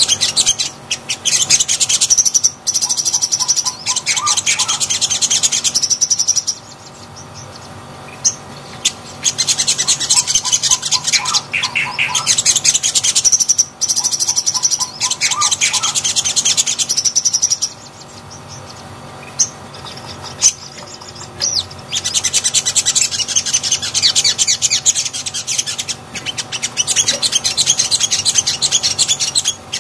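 Sunbird (sogon) singing: long bouts of rapid, high-pitched chirping and twittering, broken by two short pauses.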